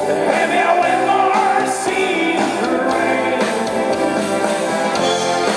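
Live rock band playing a song: a male lead singer over electric guitar, bass guitar and drums.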